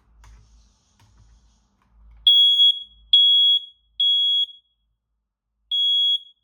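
Kidde i9080 ionization smoke alarm sounding its test alarm in the temporal-three (code 3) pattern. Three loud, high-pitched beeps of about half a second each come, a pause follows, and the next group of three begins near the end. A few faint low thuds come before the first beep.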